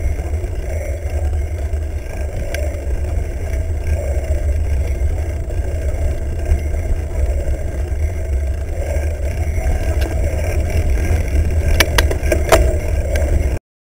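Steady wind rumble on a bike-mounted camera's microphone as a mountain bike rolls over a dirt track. A few sharp knocks and rattles from the bike come near the end, then the sound cuts off abruptly.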